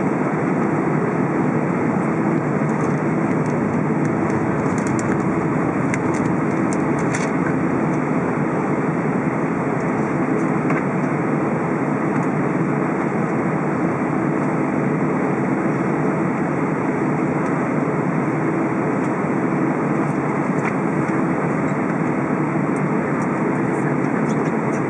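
Steady cabin noise inside an Airbus A320 on the ground: its twin jet engines at low taxi power and the cabin air, an even rumble with a low hum.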